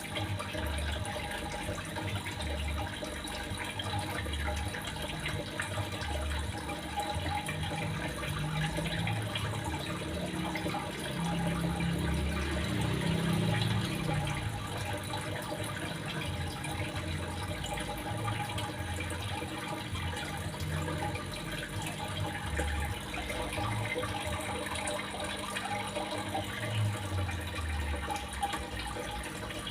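Running water splashing steadily, the kind of trickling-water sound played to songbirds as therapy.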